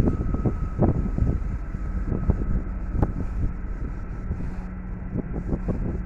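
Wind buffeting the microphone in a snowstorm, in irregular gusty thumps over a steady low rumble, with a faint steady whine.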